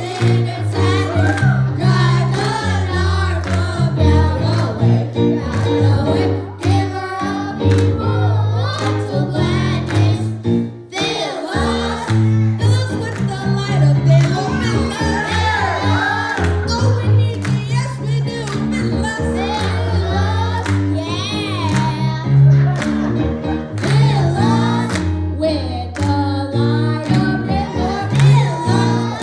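Gospel worship song: voices singing over a band with a steady bass line and drum hits, briefly dropping away about eleven seconds in.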